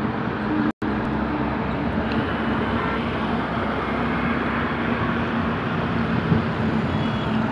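Steady road and engine noise of a car moving at speed, heard from inside the car, with a low drone. It cuts out briefly less than a second in.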